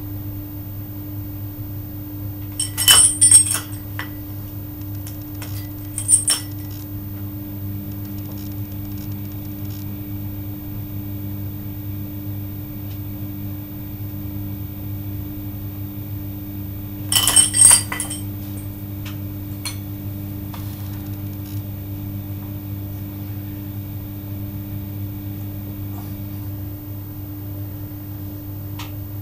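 Iron weight plates clinking against each other on a grip-training loading pin, in three short bursts about three, six and seventeen seconds in, over a steady low hum.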